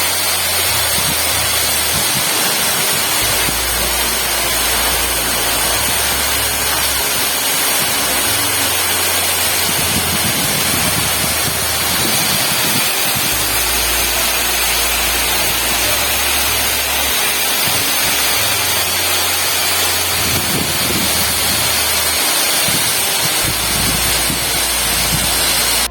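Waterfall: a steady, loud rush of falling water with a low rumble underneath.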